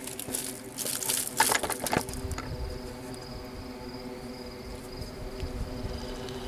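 A few seconds of rustling and scuffing at first, then a steady low hum with a faint, thin, high insect buzz over it, as of night insects.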